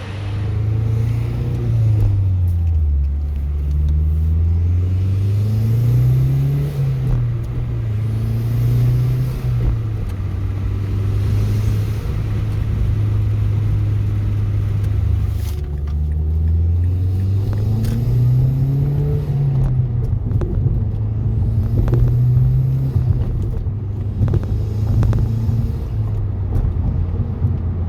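Mazdaspeed3's turbocharged 2.3-litre four-cylinder running under way, breathing through a Corksport Stage II short ram intake. The engine note rises and falls several times as the car accelerates, eases off and changes gear.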